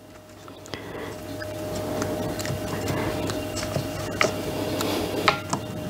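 Soft dabbing of a silicone pastry brush soaking milk into a sponge cake, with a few light clicks and taps, over a faint steady hum.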